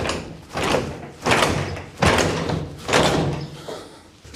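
Sectional roll-up rear door of a truck's box body banging and rattling as it is yanked on again and again, about six jolts in four seconds.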